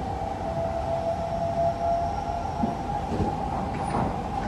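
Kawasaki/CSR Sifang C151B MRT train running, heard from inside the carriage: a steady rumble of wheels on the track with a whining tone over it, and a couple of knocks from the rails in the second half.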